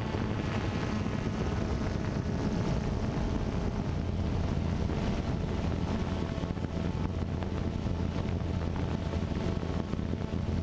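A steady low motor hum under wind rushing on the microphone; the hum grows stronger about four seconds in.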